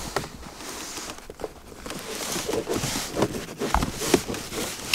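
Rustling and scraping of a folded camp stool in a black fabric bag being pulled out from under a car seat, with a few light knocks and clicks.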